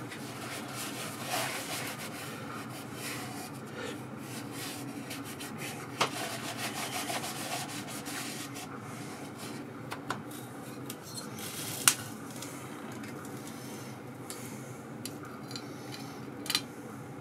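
Blue shop towel rubbing and wiping out the inside of the compressor's oily air-filter cover, with a few sharp clicks and knocks as the cover is handled, the loudest about twelve seconds in.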